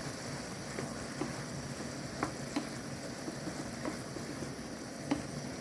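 Mushrooms and matchstick carrots frying in hot vegetable oil and soy sauce, a steady sizzle with a few sharp light clicks scattered through it.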